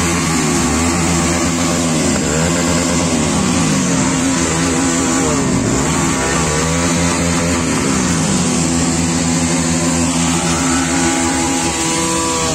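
Several motorcycle engines running and being revved together, their pitch rising and falling over and over as the throttles are blipped.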